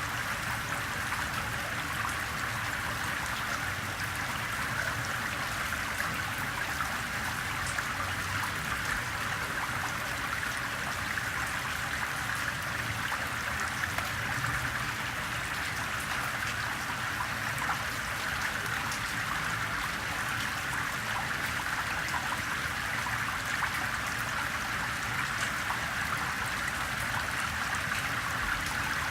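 Gentle rain with rainwater trickling and running off a pebbled street, a steady splashing patter.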